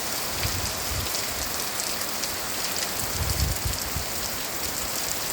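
Steady rain falling on surfaces, with single drops ticking through the hiss. A brief low rumble about three seconds in.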